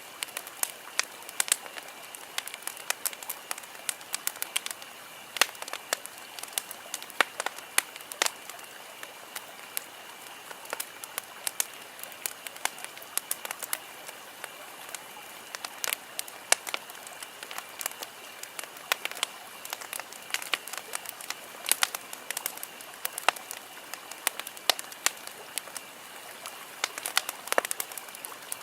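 Wood campfire crackling: irregular sharp snaps and pops, some much louder than others, over a steady hiss of burning.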